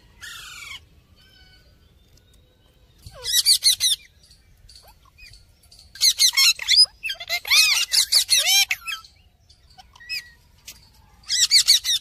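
Rose-ringed parakeets screeching: several bursts of rapid, harsh, shrill calls with quiet gaps between, the longest in the middle and another near the end.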